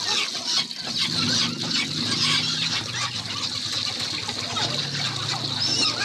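Tap water running and splashing into a stainless steel basin as hands rinse plucked quail, with irregular splashes from the handling. A low steady hum sits underneath.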